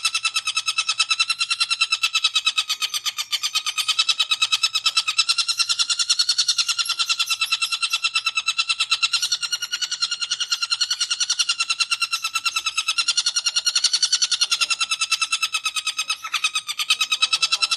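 Long-tailed shrike (cendet) in full 'ngekek' chatter: a fast, unbroken run of identical harsh notes, several a second, held at one steady pitch.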